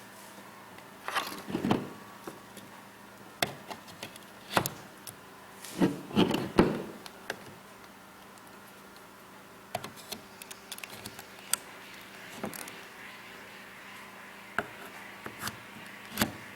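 Equipment and cables being handled on a table: irregular knocks, clicks and rubbing, in several clusters, over a faint steady electrical hum.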